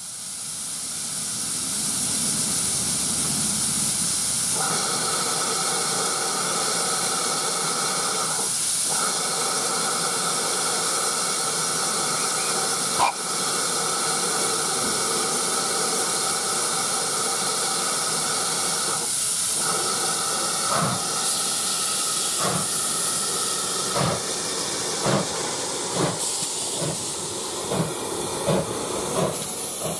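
GWR 5700 Class pannier tank locomotive with steam hissing loudly while it stands, then starting away with its train: slow exhaust beats begin about two-thirds of the way through and quicken steadily. There is one sharp knock near the middle.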